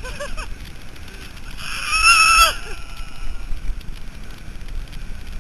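A girl's loud, high-pitched scream lasting under a second, about two seconds in, ending in a falling glide. Under it runs the steady rumble of an alpine coaster sled rolling along its metal rail, with wind on the microphone.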